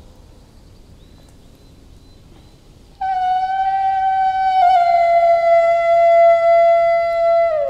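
Bukkehorn, a Norwegian goat horn, blown. After about three seconds of quiet, one long loud note starts abruptly, steps slightly lower about a second and a half later, and drops lower again near the end.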